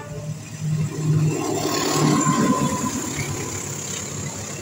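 Diesel-electric locomotive passing close by with a passenger train, its engine running with a steady low hum under the noise of the wheels on the rails. It is loudest about two seconds in, as the locomotive goes by, and then the coaches roll past.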